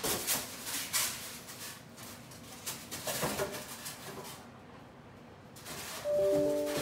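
Cardboard packaging being handled and pulled away from a boxed chiller: irregular rustling, scraping and knocks, with a few short squeak-like tones near the end.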